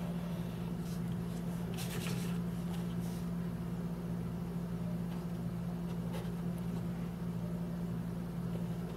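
Faint rubbing and light scratching of hands handling and pressing together two glued EVA foam circles, a few soft touches around two, three and six seconds in, over a steady low hum.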